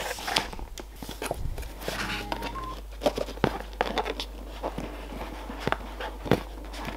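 Handling noise of a cardboard product box: scattered taps, scrapes and rustles as the iPad Air box is shifted around in its shipping carton and its lid is slowly slid up off the base.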